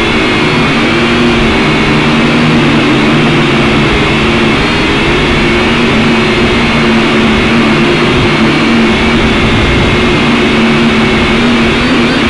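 Syma X5C quadcopter's four small brushed electric motors and propellers whirring steadily in flight, heard close up through its onboard camera. Several whining tones waver slightly up and down as the motor speeds shift to keep it in the air.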